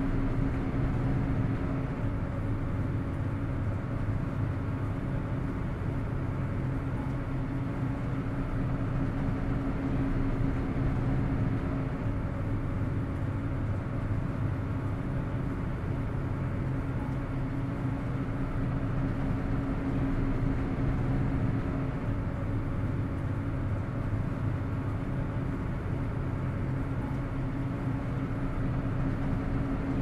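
Ferry engines running at a steady, unchanging low drone, with a constant hum over it.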